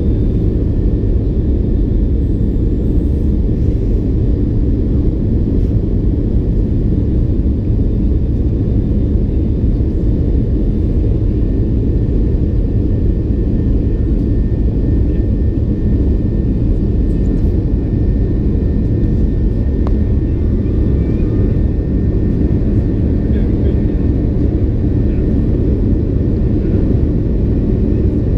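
Steady low drone of a twin-engine jet airliner heard inside the cabin at a window seat beside the wing, with engine and airflow noise during the climb after takeoff.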